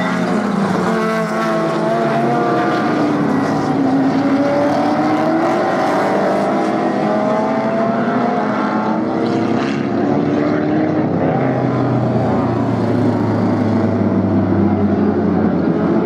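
Several Improved Production race cars running hard, their engines overlapping, with pitches rising through the revs and dropping at the gear changes as the cars pass.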